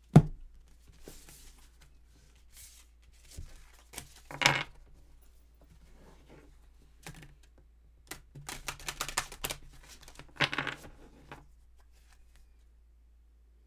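Tarot cards being handled at a wooden table: a sharp knock as a deck is set down at the start, then cards sliding and tapping, with a quick run of card flicks about eight seconds in as the deck is shuffled.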